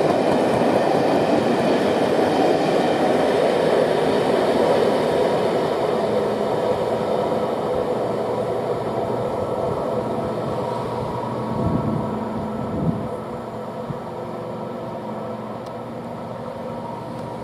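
Locomotive-hauled passenger coaches running past at speed, a steady rush of wheels on the rails that fades away over the second half as the train recedes, with a couple of short knocks near the end.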